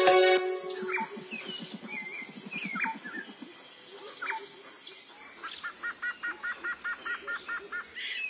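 Music stops just after the start, giving way to jungle ambience: birds chirping and calling with short gliding notes, and a low rapid rattle for the first few seconds. Near the end comes a fast run of about a dozen identical chirps, roughly five a second.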